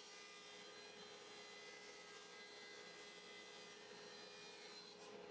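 Table saw running faintly and steadily while cutting a long white oak panel, a low steady hum with a thin whine over it.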